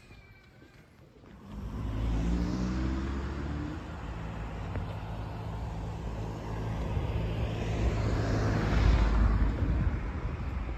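Motor vehicles passing close by on the road: an engine comes in loudly about a second and a half in, rising in pitch as it accelerates, and the traffic noise builds again to a loud pass-by near the end.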